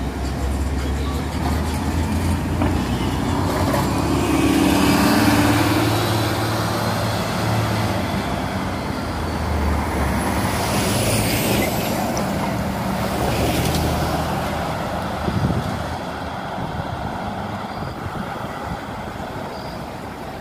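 City transit bus driving past with its engine running, loudest about five seconds in, then fading as it pulls away into the street's traffic noise.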